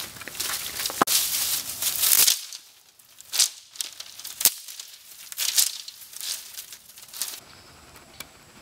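A bundle of thin dry sticks being carried and handled as fuel for the fire, rustling and crackling in a run of sharp noisy bursts that stop about seven seconds in.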